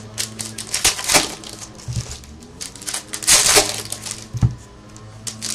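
A plastic foil trading-card pack wrapper being crinkled and torn open by hand, in irregular bursts of crackling that are loudest a little over three seconds in.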